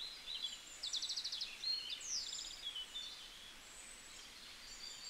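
Faint songbird song: quick high chirps and short rapid trills, busiest in the first three seconds, over a light outdoor hiss.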